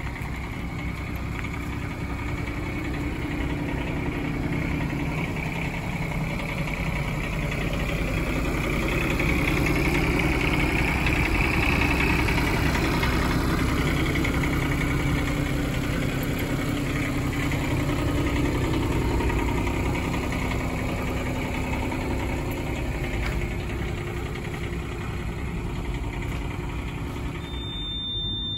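Doosan DX10Z micro excavator's engine idling steadily, louder through the middle stretch when heard close to the rear engine cover, then easing off.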